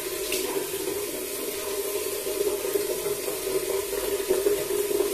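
Bathroom tap running steadily into a sink basin.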